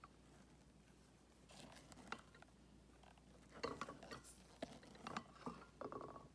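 Spatula scraping and scooping stiff whipped cream in a glass measuring cup: faint scrapes and soft knocks against the glass, once about a second and a half in, then several in quick succession from about three and a half seconds to the end.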